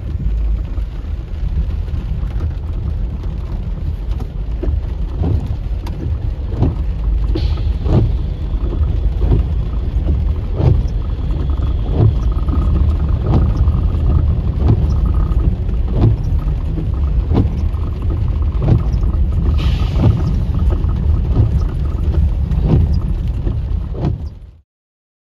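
A string of CN diesel locomotives rumbling past close by, with regular knocks about every 0.7 seconds, heard from inside a car with rain on the windshield. The sound cuts off suddenly near the end.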